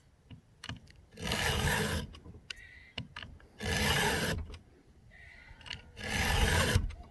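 A 2-in-1 chainsaw file is pushed across a cutter tooth of a chainsaw chain in three even rasping strokes about two and a half seconds apart, with light clicks between strokes. The round file sharpens the cutter while the flat file takes down the depth gauge, touching up a chain that is lightly dulled after about three tanks of use.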